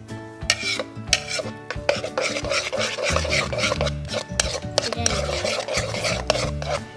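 A spoon stirring shaving cream into school glue in a container for cloud slime: continuous wet scraping, with a few sharp clicks in the first two seconds. Background music plays underneath.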